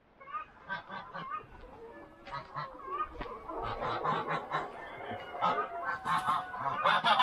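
Geese honking in short repeated calls, sparse at first, then louder and more crowded together from about halfway on.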